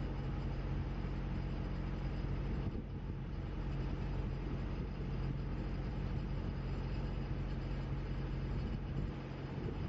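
Steady low mechanical hum with an even engine drone and a noisy rumble underneath.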